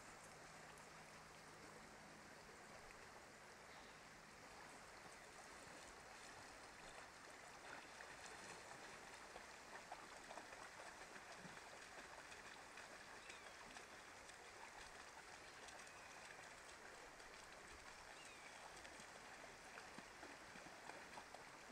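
Faint, steady rush of a shallow creek running over gravel.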